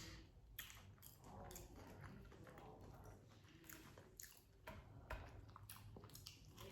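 Faint chewing of a bacon cheeseburger close to the microphone, with scattered short wet clicks and smacks of the mouth.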